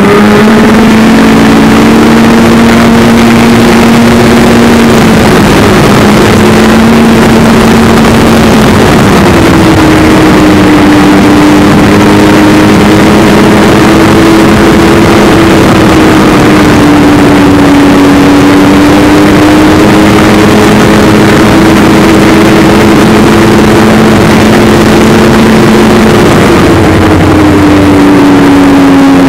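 Snowmobile engine running at trail speed, loud and steady. Its pitch drops about a third of the way in, comes back up, and drops again near the end as the throttle changes, over a constant rushing noise.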